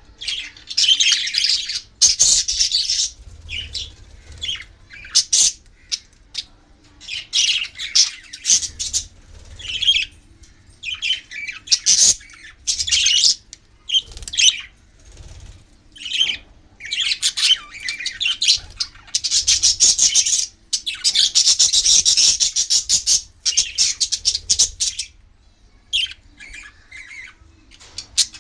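Pet budgerigars chirping and chattering: bursts of high-pitched warbling calls, some short, some running on for a second or two, with short pauses between.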